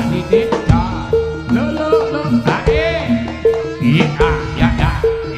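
Javanese jaranan ensemble music: hand drums keep a driving beat under a steady repeating two-note pattern of tuned gongs, with a wavering, gliding melody line above.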